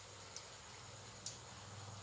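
Fish-tofu wontons deep-frying in a wok of oil: a faint sizzle with two small pops of spitting oil, over a steady low hum.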